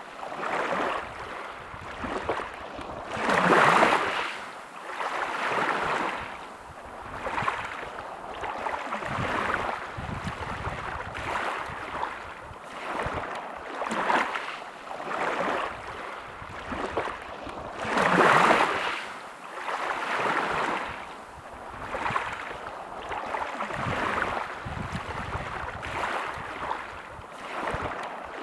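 Small sea waves lapping and washing in, a swell of water noise about every two seconds, with two bigger waves about three seconds in and again about eighteen seconds in.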